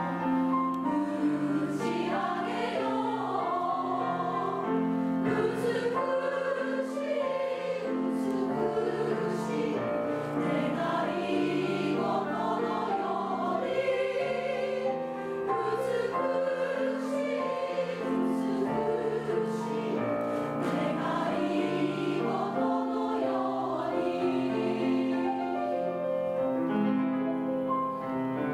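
Women's three-part choir singing with grand piano accompaniment, held notes in several voices at once.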